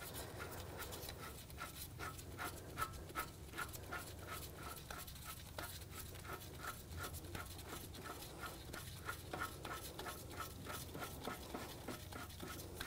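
Faint, even clicking, about three clicks a second, as the loosened axle bolt is unscrewed by hand from the front wheel hub of a 2007 Audi A4 Quattro. A low hum runs underneath.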